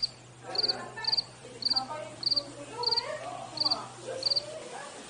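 A cricket chirping in a steady rhythm: short, high, trilled chirps a little under two a second, stopping near the end. Faint voices and a low hum lie underneath.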